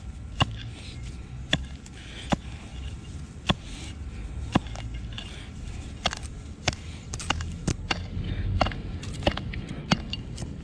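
Digging tool chopping into soil in a string of sharp knocks, about one a second and coming faster in the second half, as a metal detector target is dug out.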